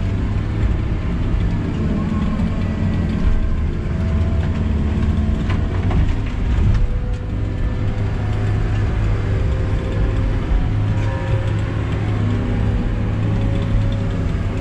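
Feller buncher's engine running steadily under load, heard from inside the cab, as its disc-saw felling head works, with a few short knocks.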